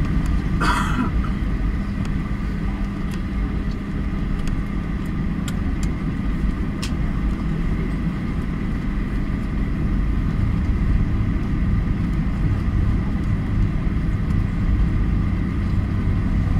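Cabin noise of a Boeing 737 taxiing, heard from a seat over the wing: the jet engines' steady hum and rumble, with a thin steady whine over it. A brief rustle comes about a second in, and the low rumble grows slightly stronger in the second half.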